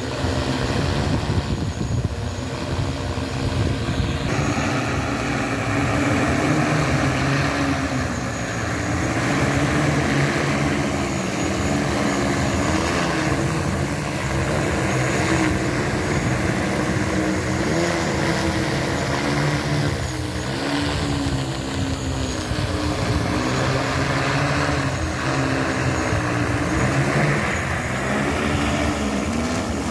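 Rotors of a large 20-litre agricultural spraying drone humming loudly as it hovers and descends to land. The pitch wavers up and down as the motors keep adjusting.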